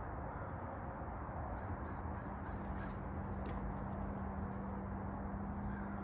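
Steady outdoor background rumble with a low steady hum that comes in about two seconds in, and a short run of four or five faint bird calls about two seconds in.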